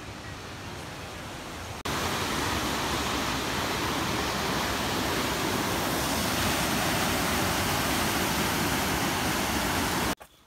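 Steady rushing of river rapids pouring over rocks, getting abruptly louder about two seconds in and cutting off near the end.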